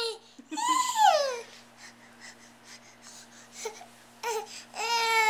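A toddler's voice: two drawn-out, high-pitched wordless vocal sounds, the first about a second in rising then falling, the second held level near the end.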